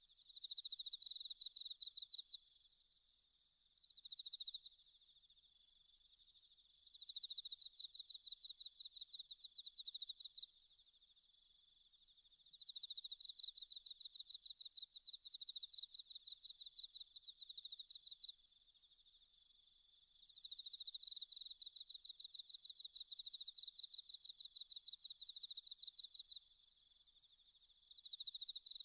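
Insects chirping in high, fast-pulsed trills that come in bouts of one to several seconds with short pauses between.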